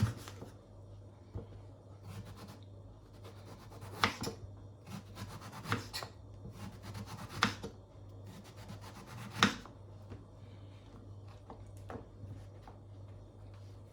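A kitchen knife slicing aubergine on a cutting board: scraping and rubbing of the blade through the flesh, with four sharp knocks of the knife against the board a second and a half to two seconds apart.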